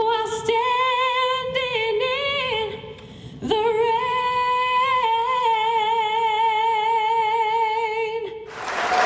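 A woman singing the closing phrase of a gospel song, ending on one long held note with vibrato that lasts about five seconds. Applause breaks out near the end.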